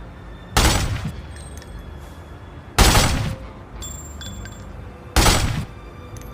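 Three short bursts of automatic fire from an AK-47 rifle, each about half a second long and roughly two and a half seconds apart.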